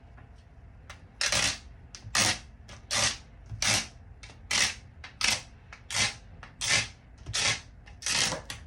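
Rhythmic wiping strokes on an iPad Pro's glass screen, about ten short swishes starting a second in, evenly paced at roughly one and a half a second, cleaning the screen before a screen protector goes on.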